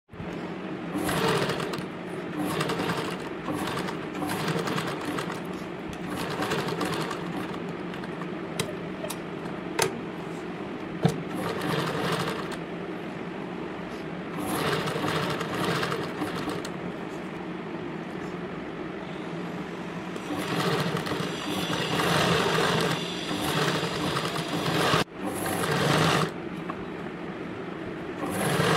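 Electric sewing machine stitching, a steady running hum that swells into several louder spells, with a few sharp clicks around the middle.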